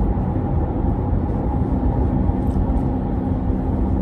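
Steady low rumble of a car on the road, heard from inside the cabin, with a faint steady hum coming in about halfway through.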